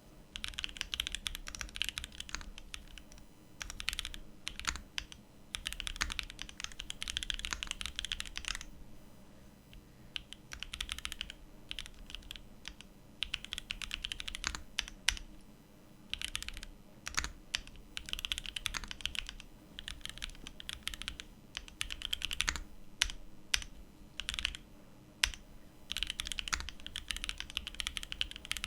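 Typing test on a Mode Envoy mechanical keyboard with linear switches and Wuque Studio Stellar keycaps: rapid keystroke clicks in runs of a second or three, separated by short pauses.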